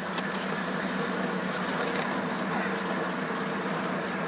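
A 1971 Ford pickup truck driving, heard from inside the cab: its engine runs steadily with a low hum and even road noise.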